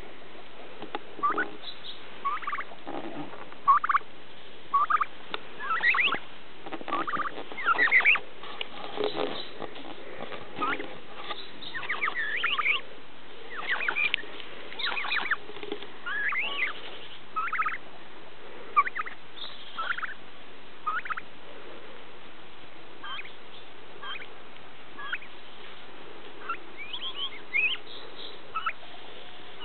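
White domestic turkey hen making short, high-pitched calls, many sliding up or down in pitch, about one a second, becoming sparser in the last third.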